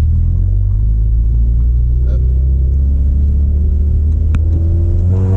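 Cabin rumble of a 2000 Honda Prelude on the move: a steady, loud low drone of its four-cylinder engine and the road. The engine note climbs in pitch in the last second as the car accelerates.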